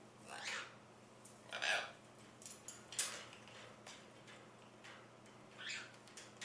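Blue-and-gold macaw making a few short, breathy hissing noises and sharp clicks, four separate bursts a second or so apart, over a low steady hum.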